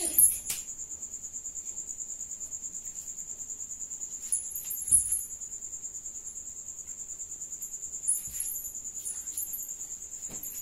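Steady, high-pitched chirping that pulses evenly about six times a second, of the kind an insect makes, with a few soft knocks near the start, about halfway through and near the end.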